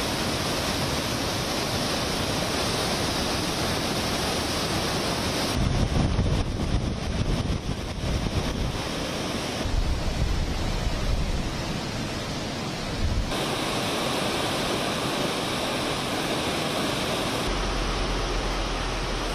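Floodwater of a swollen, muddy river rushing and churning, a steady dense noise of turbulent water that changes abruptly at several cuts between shots. In the middle stretch gusty low rumbles join it, like wind buffeting the microphone.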